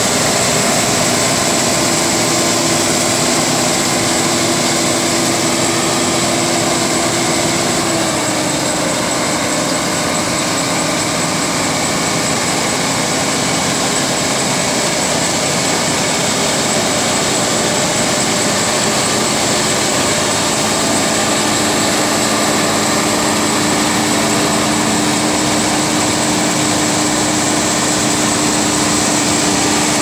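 Laverda 3500R combine harvester running close by: a loud, steady mechanical din of engine and working machinery with a constant high-pitched whine. Its lower hum dips slightly in pitch about eight seconds in.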